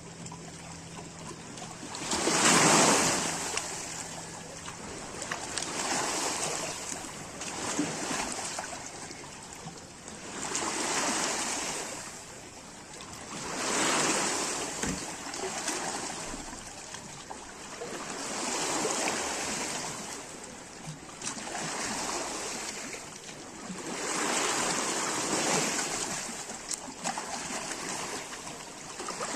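Sea waves washing in, swelling and fading every few seconds, the first surge near the start the loudest.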